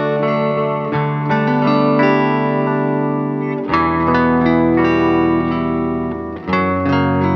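Background music: sustained guitar chords through an effects unit, changing chord about every three seconds.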